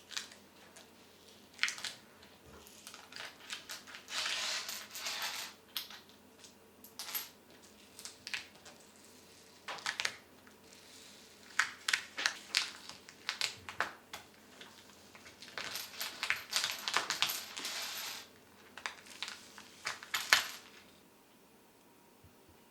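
Small hard objects being handled: irregular clinks and clatters, with a few longer stretches of scraping or rustling.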